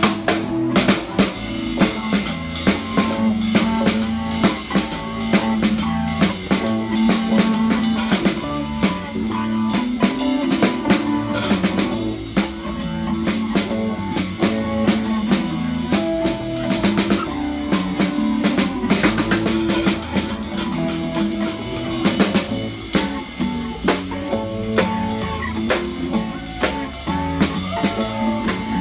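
Live rock and roll from a street band: a drum kit with bass drum, snare and rimshots keeps the beat under electric guitars and bass guitar.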